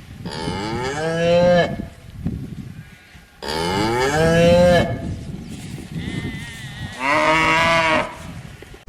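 Cattle mooing: three long calls a couple of seconds apart, the middle one the loudest.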